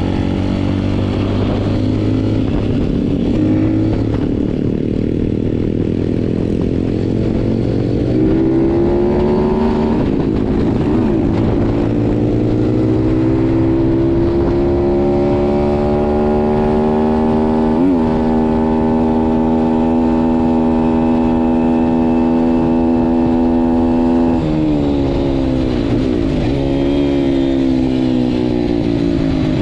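Thumpstar 140 pit bike's single-cylinder four-stroke engine heard from the rider's seat while riding: the revs climb from about eight seconds in, hold at a steady high pitch for about ten seconds, then drop as the throttle is rolled off and rise and fall after that.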